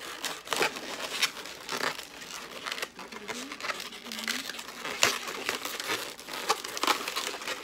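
Inflated latex modelling balloons squeaking and rubbing against each other as they are twisted and squeezed by hand, a steady run of irregular short squeaks and crinkles.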